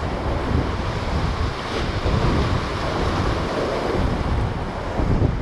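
Ocean surf breaking and washing against black lava rocks, with wind buffeting the microphone.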